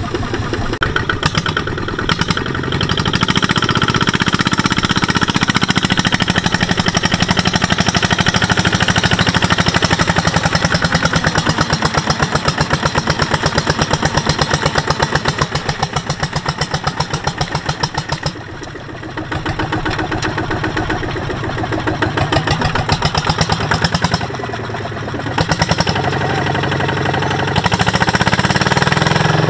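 Single-cylinder diesel engine of a two-wheel walking tractor chugging hard with fast, even firing pulses as it drags a loaded trailer through deep mud, easing off briefly twice in the latter half.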